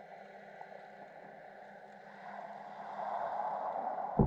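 Muffled underwater water noise picked up by a submerged action camera. The rush swells about three seconds in, and a sharp knock, likely on the camera housing, comes near the end.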